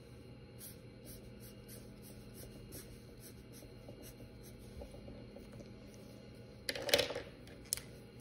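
Sharpie marker scratching out short, quick strokes on watercolor paper that is not completely dry, which makes the marker drag. A brief louder noise comes about seven seconds in.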